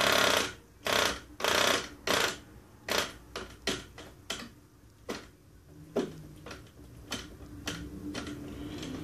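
A Cox .020 glow-plug two-stroke model engine, flipped over by hand, fires in short bursts of under half a second and cuts out each time. There are four strong bursts in the first two and a half seconds, then shorter, weaker pops. It will not keep running, the stubborn hard starting that the owner puts down to the engine sitting unused for a long time.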